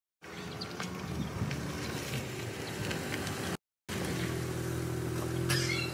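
Small hatchback car running as it drives up and slows to a stop, a steady engine hum under outdoor road noise that grows stronger near the end. The sound drops out completely for a moment a little past halfway.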